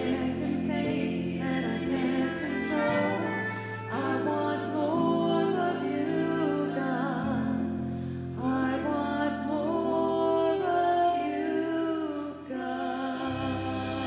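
Women singing a slow church hymn at the offertory, with keyboard accompaniment. Their sustained notes waver above long held bass chords.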